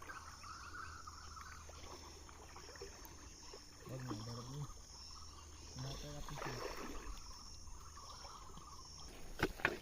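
Faint outdoor ambience: a steady, thin insect drone, with distant voices about four and six seconds in and a couple of sharp knocks near the end.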